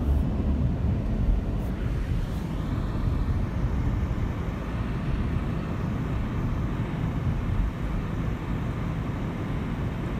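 Steady road and engine rumble of a car driving along a city street, heard from inside the moving car.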